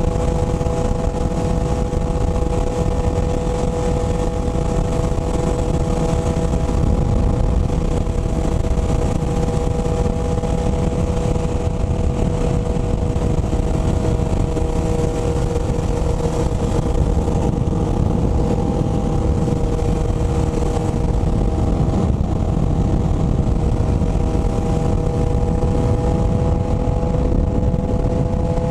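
Motorcycle engine running at a steady cruising speed, its pitch holding nearly level, under a heavy low rush of wind noise.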